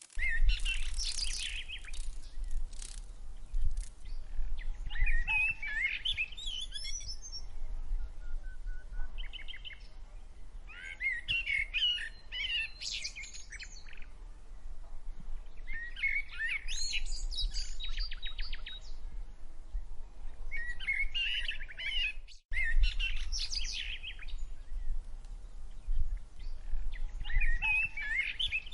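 Songbirds chirping and singing in short bursts of quick, high notes every few seconds, over a steady low rumble.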